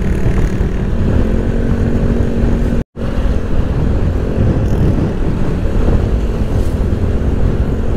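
Honda ADV150 scooter's single-cylinder engine running at a steady cruising speed under heavy wind rumble on the rider's microphone. The sound cuts out for an instant about three seconds in.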